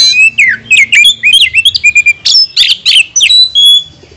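Oriental magpie-robin (kacer) singing loudly: a rapid run of sharp whistled notes, quick up-and-down slurs and chattery phrases that breaks off shortly before the end.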